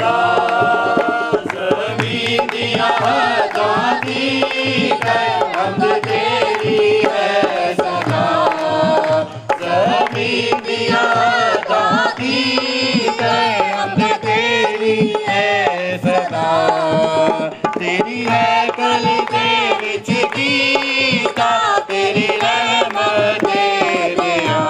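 A man singing an Urdu Christian worship song into a microphone, with hand-drum accompaniment keeping a steady beat.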